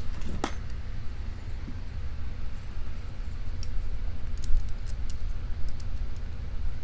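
Small metallic clicks and ticks of a brass padlock and its parts being handled and worked with small tools: one sharp click about half a second in and a quick run of faint ticks about two-thirds of the way through, over a steady low hum.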